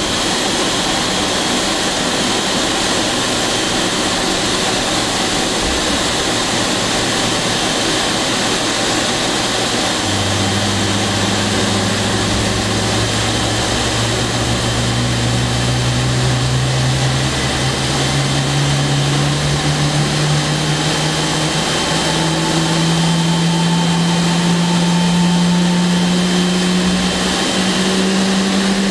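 Wide-body twinjet heard at close range from beneath its nose: a steady jet whine and rush. About ten seconds in, a low hum joins and rises slowly and steadily in pitch, like an engine spooling up.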